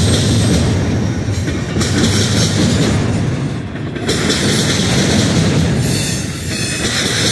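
Double-stack intermodal freight cars rolling past close by: a loud, steady rumble and clatter of steel wheels on the rails.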